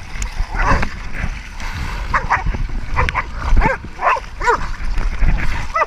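Hog-hunting dogs barking, about half a dozen short barks over a low rumble.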